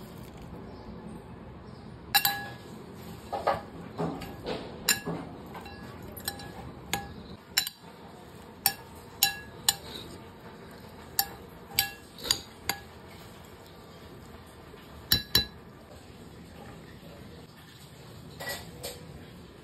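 Utensils clinking against a dish: about twenty sharp, ringing clinks at irregular intervals, with two close together about fifteen seconds in and a softer one near the end.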